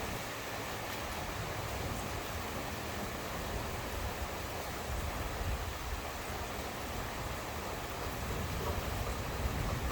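Steady rain falling, a continuous even hiss, with a low rumble underneath that swells slightly near the end.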